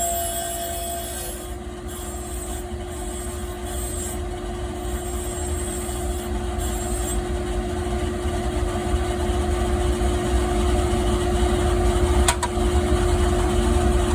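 Skate sharpening machine running: its grinding stone spins with a steady hum and a loud grinding hiss, as the stone is dressed with a diamond tip to cut the hollow, the groove for a hockey skate. The hiss changes about seven seconds in, and there is a single sharp click near the end.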